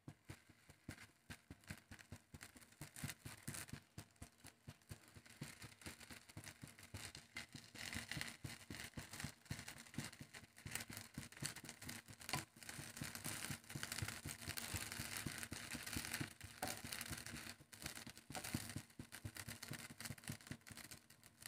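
Batter-coated bread slices shallow-frying in a little oil in a non-stick pan: a faint, steady sizzle full of quick crackles, thickening a couple of seconds in and dying away near the end.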